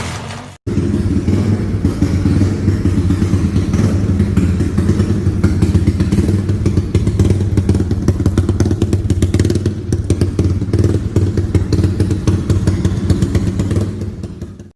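Yamaha Y15ZR motorcycle's single-cylinder four-stroke engine running steadily at idle, with a choppy, clattering exhaust pulse. It starts after a short break about half a second in and cuts off just before the end.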